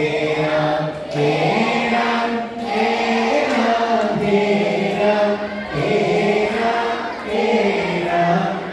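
A hall full of children and adults singing a slow devotional song together in unison, holding long notes in short phrases.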